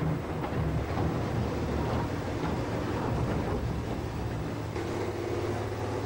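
Diesel engine of a Caterpillar wheel loader running while it works, its engine note rising and falling.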